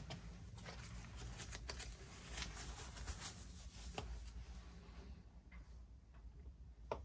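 Faint handling noise: scattered light clicks, taps and rustles as gloved hands pick up and handle the small plastic parts and hose of a dismantled soap dispenser, over a steady low hum.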